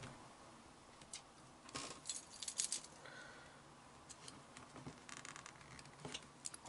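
Faint clicks, rustles and light rattles of hands handling a plastic extension lead and its coiled flex, ending in a short, louder jangle of keys.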